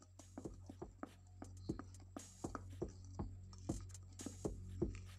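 Wooden spoon knocking and scraping against a glass mixing bowl while flour is stirred into a thick butter cake batter: light, irregular taps several times a second.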